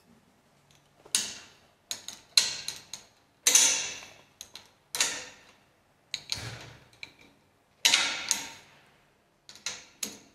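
Sharp metal clicks and clanks, about a dozen at irregular intervals, each ringing briefly: steel bolts and a ratchet spanner being handled and fitted on a steel fixture.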